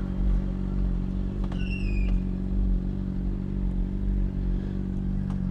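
Honda sport bike engine running at a steady, unchanging pitch, heard from the rider's helmet microphone, with a brief high squeal that dips slightly in pitch about one and a half seconds in.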